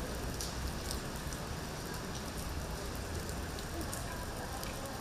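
Steady rain falling: an even hiss with scattered sharp ticks of drops striking.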